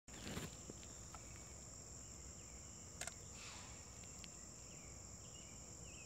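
Faint, steady, high-pitched drone of insects, with a couple of short knocks, one about three seconds in.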